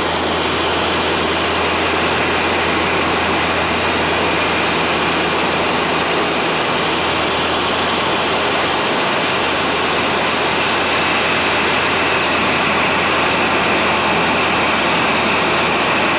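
Cabin noise of a de Havilland Canada Twin Otter's twin turboprop engines and propellers in cruise: a steady loud rushing drone over a constant low hum, with a faint high whine.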